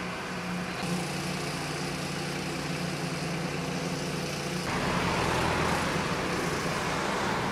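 Fire engine's diesel running steadily, a low even hum. About five seconds in, a louder rushing vehicle noise comes in as a van drives past close by, easing off near the end.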